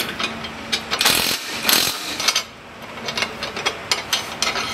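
Steel rod slid by hand through welded steel hinge brackets on a metal frame: a run of irregular metallic clinks and scrapes, two of them louder knocks about a second in and near the middle.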